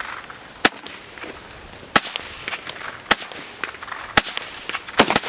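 Gunshots at a firing range: loud, sharp reports about a second apart, the last two close together near the end, with fainter shots cracking in between.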